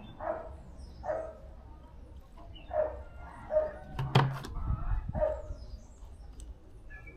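A dog barking repeatedly, about six short barks spaced roughly a second apart, with a sharp knock about four seconds in.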